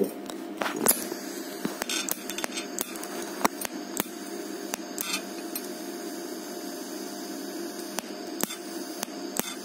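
DC TIG (argon) welding arc burning on stainless steel as a hole in the seam is welded up: a steady hiss and buzz, broken by irregular sharp clicks and crackles.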